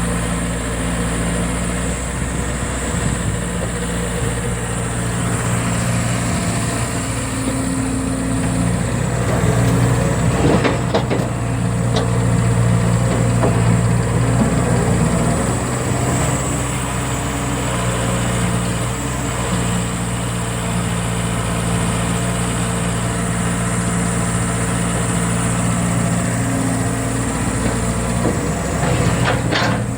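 Diesel engine of a JCB 210 excavator running steadily while it loads sand, pulling harder for a few seconds about a third of the way in. A few sharp knocks come through about a third of the way in and again near the end.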